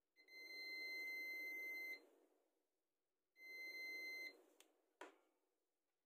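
A multimeter's continuity buzzer sounds two steady high beeps, the first nearly two seconds long and the second about a second, as the test leads bridge terminals of the ignition switch, signalling continuity between them. A short sharp click follows about five seconds in.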